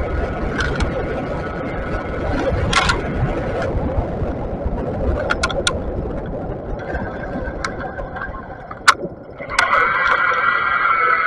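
Wind buffeting on the microphone and road noise while riding a Bafang BBS mid-drive e-bike, with a faint motor whine that turns loud and steady about a second and a half before the end. A few sharp clicks, the loudest shortly before the whine rises.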